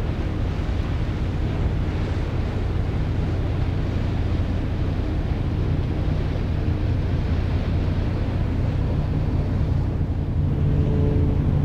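Low, steady drone of a passing general cargo ship's diesel engine, with wind buffeting the microphone.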